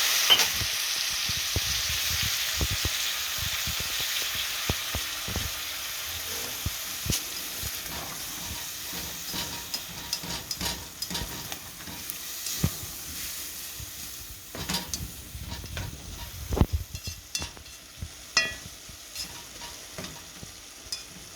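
Onions and tomatoes sizzling in a hot pan just after a splash of water: the hiss is loud at first and dies down over several seconds. A utensil stirring the pan scrapes and taps against it throughout.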